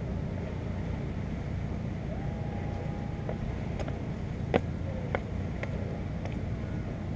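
Steady low engine rumble, with a short faint tone just past two seconds in and a few sharp clicks and knocks a little after halfway as someone steps across the rocks.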